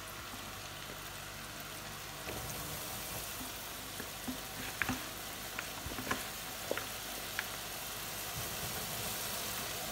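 Hot oil at 180 °C in an electric deep fat fryer sizzling as floured onion strands are dropped in: a steady hiss that grows louder about two seconds in, with scattered crackles and pops.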